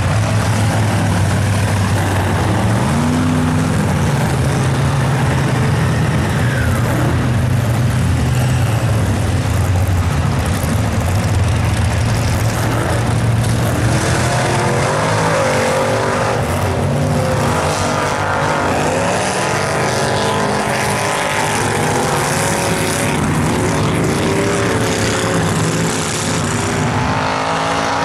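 Lifted square-body Chevy mud trucks running through a mud bog pit on big tires: the engine revs hard and its pitch rises and falls repeatedly, with a steady wash of spray and tire noise underneath. The revving grows busier in the second half.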